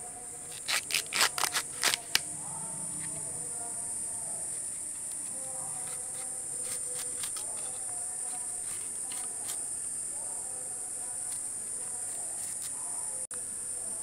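Steady high-pitched drone of insects, with a quick run of about seven sharp knocks in the first two seconds.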